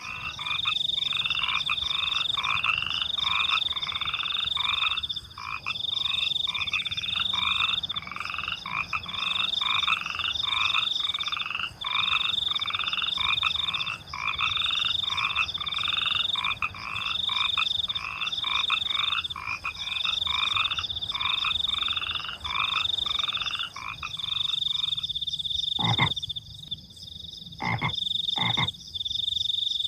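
Frogs croaking in a fast, steady run of short rising calls over a high, continuous cricket trill. The frogs fall silent about five seconds before the end, leaving the crickets, and three sharp clicks follow near the end.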